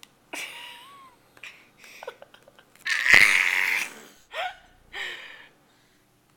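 A baby's breathy squeals and babbling in short bursts, with one loud, harsh squeal about three seconds in.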